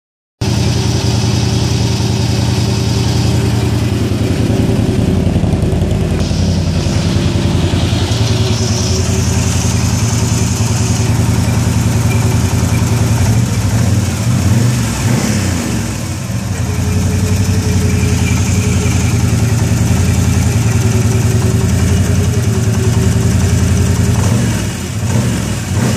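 2008 Can-Am Renegade ATV's Rotax 800 High Output V-twin engine idling steadily, fully warmed up.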